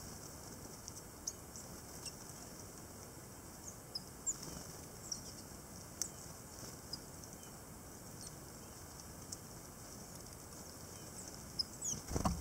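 Short, thin, high call notes of tits, scattered irregularly over a steady low hiss, with a few light clicks. Near the end comes a brief, louder rustling flurry.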